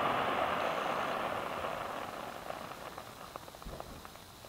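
Fireworks crackling and hissing, fading out over the first few seconds, then a few faint scattered pops.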